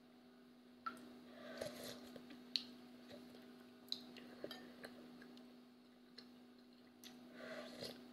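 Broth slurped from a metal spoon twice, about a second and a half in and again near the end, with light clicks of the spoon against the bowl between sips. A steady low hum runs underneath.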